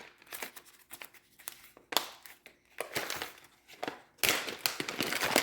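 Packaging of a diamond painting toolkit rustling and crinkling with small clicks as it is handled and opened, with a longer spell of rustling about four seconds in.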